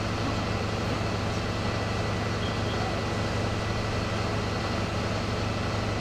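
Engine running steadily at a constant speed, a continuous low hum under an even hiss, from fire-service equipment at the scene.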